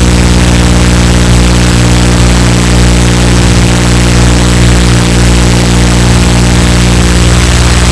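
Steady, loud hum of an RC model aircraft's motor and propeller, heard close up through its onboard camera: several fixed tones that hold without change in speed, over a hiss.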